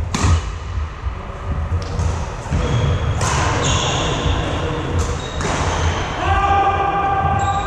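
Badminton in a large echoing hall: a sharp racket smash on the shuttlecock at the start, then sneakers squeaking on the wooden court floor, with voices in the background.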